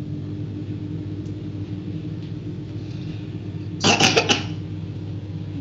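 Steady low mechanical hum, with one short, loud burst of noise about four seconds in.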